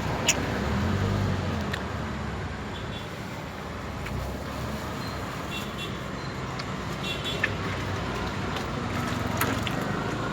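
Busy road traffic: a steady wash of passing vehicle engines and tyre noise, with a few sharp clicks.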